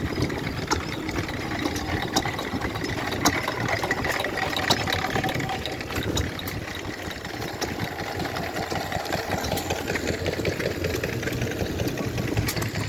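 A vintage engine running steadily, with scattered sharp clicks over the running.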